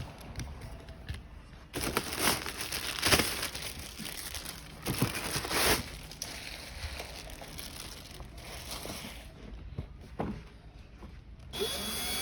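Crinkling and rustling with several sharp knocks, from parts of a kids' ride-on car being handled during assembly.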